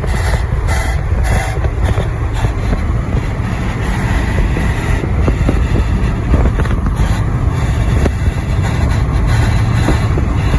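Pickup truck driving at speed: steady road and wind noise with a heavy low rumble.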